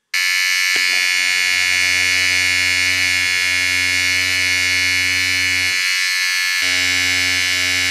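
A small handheld electric motor buzzing steadily, pressed against a phone held in a Quad Lock vibration dampener mount to shake it. The deepest part of the buzz drops out for about a second near the end, then returns.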